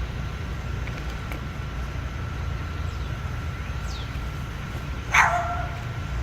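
A dog gives one short, loud yip about five seconds in, over a steady low background rumble.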